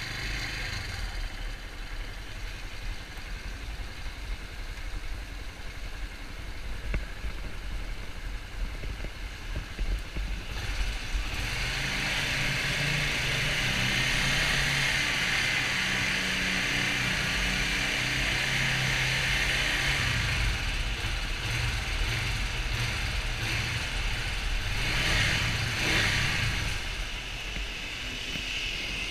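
Suzuki TU250X's 250 cc single-cylinder engine and exhaust running under way, with the throttle opened and closed. It grows louder about eleven seconds in, with a tunnel's echo, and swells again briefly a few seconds before the end.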